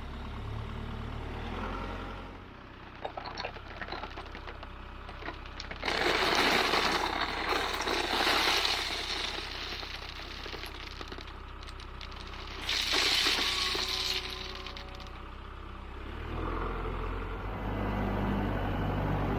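Diesel tractor engine running steadily while its loader bucket dumps rock. There are two loud rattling, crashing pours of gravel, each a couple of seconds long: one about six seconds in and one near thirteen seconds.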